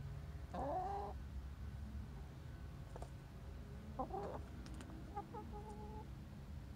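Hen vocalising close up: a short rising call about half a second in, another about four seconds in, then a held two-note call near the end, typical hen 'buk' talk. A steady low rumble runs underneath.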